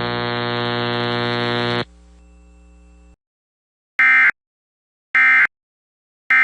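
Emergency Alert System end-of-message code: three short digital data bursts about a second apart in the second half, the loudest sounds here. Before them, a loud buzzing hum cuts off about two seconds in, a fainter hum lingers about a second longer, and then there is silence.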